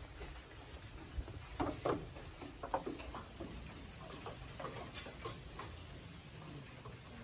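Goats moving about in their pen: scattered light taps and knocks at irregular intervals, with a small cluster of louder ones about two seconds in and another near five seconds.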